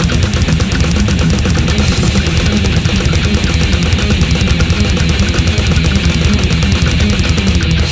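Death metal: heavily distorted, down-tuned guitars and bass over very fast, dense drumming with rapid cymbal hits, played loud without a break.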